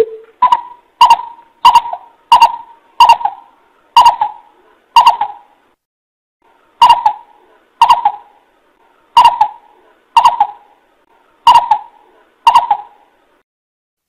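Greater coucal lure call. A single lower note, then a run of about thirteen short notes at one pitch, with a brief pause about halfway through.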